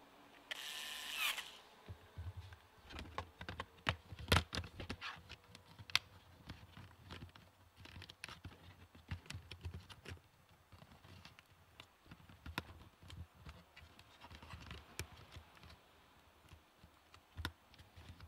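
Scattered clicks, taps and knocks of hands working on a laptop's plastic case, drive and small tools, with a brief scraping rasp about half a second in.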